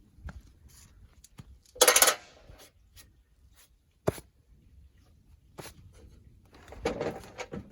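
Hands-on work sounds: scattered small clicks and knocks, with one short, loud scraping rush about two seconds in, a sharp click about four seconds in, and more rustling and scraping near the end.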